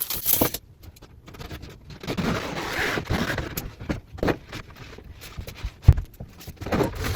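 Rustling and scraping as a length of calico cloth is handled and unfolded, with scattered light knocks and one sharp knock about six seconds in.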